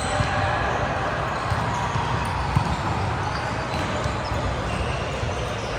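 Echoing sports-hall noise: a steady wash of play and background voices, with a few sharp ball thumps.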